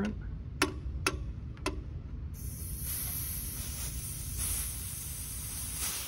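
R-134a refrigerant hissing steadily out of a loosened hose fitting on an A/C gauge manifold, starting about two seconds in. Before it there are three sharp clicks.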